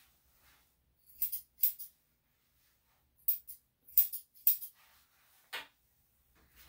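Grooming scissors snipping through a Yorkshire Terrier cross's fur: crisp metallic cuts in uneven bursts, about eight in all, with short pauses between.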